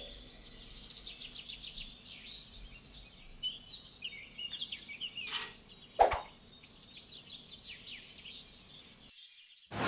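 Birds chirping busily in the background, many quick high chirps overlapping. A single sharp knock comes about six seconds in, and a loud whoosh starts right at the end.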